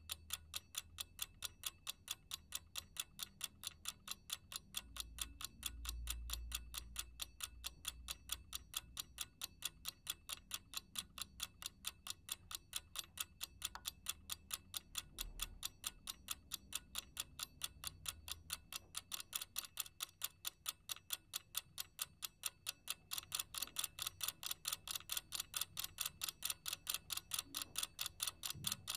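Steady, fast ticking, several evenly spaced ticks a second, over a faint low rumble that swells about six seconds in.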